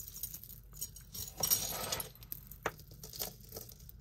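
Tangled costume jewelry (metal chains, beads and pins) jingling and clinking as it is handled and pulled apart, with one sharper click a little past halfway.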